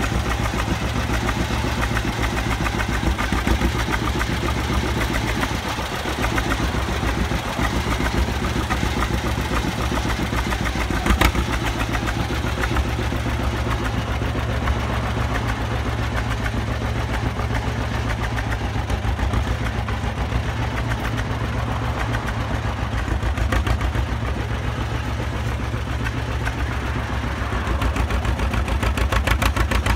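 Antique John Deere tractor's two-cylinder engine running at low speed as the tractor drives slowly, with one sharp click about 11 seconds in and the engine a little louder near the end.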